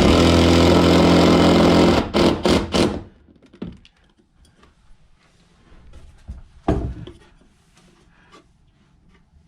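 A small electric power tool motor runs steadily for about three seconds, then is triggered in several short bursts, with one more short burst a few seconds later.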